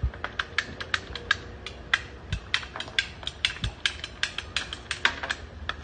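Ratcheting PVC pipe cutter clicking as it is squeezed through 1-inch PVC pipe to cut in a tee: a quick, uneven run of sharp clicks, a few a second, with a couple of duller knocks.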